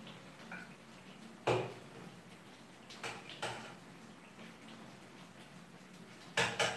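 Scattered knocks and clinks of cookware and utensils at a kitchen stove. The loudest knock comes about a second and a half in, two lighter ones follow around three seconds, and a quick pair comes near the end.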